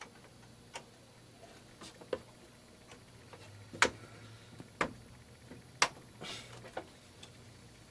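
Sharp plastic clicks and taps as DDR2 RAM modules are handled and pressed into the desktop motherboard's memory slots, with three loud clicks about a second apart near the middle and a short scrape just after.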